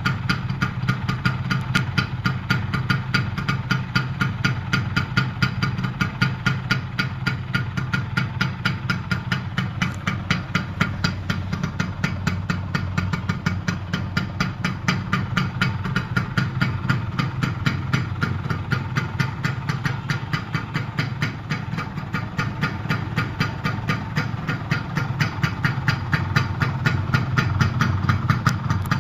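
Kawasaki GTO 125's two-stroke single-cylinder air-cooled engine idling steadily, a fast, even run of exhaust pulses.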